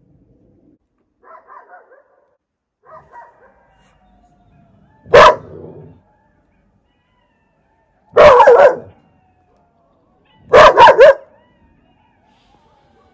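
A dog barking: one loud bark about five seconds in, another about three seconds later, and a quick run of three barks near the end, after two faint short sounds.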